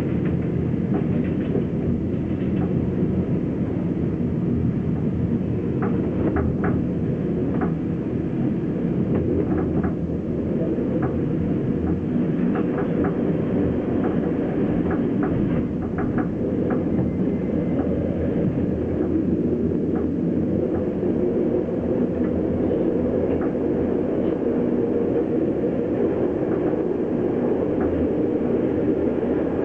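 Interior running noise of a passenger train under way: a steady low rumble, with the wheels clicking over rail joints now and then, most often in the middle stretch.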